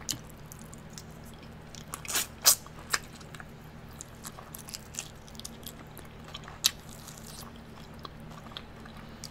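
Close-miked eating of fried hot wings: chewing and biting with wet mouth clicks and smacks. The loudest smacks come two or three seconds in and again near seven seconds, over a faint steady low hum.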